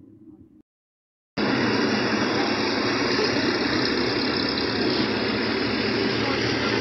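Steady road traffic noise with vehicle engines running, cutting in abruptly about a second and a half in after a moment of dead silence.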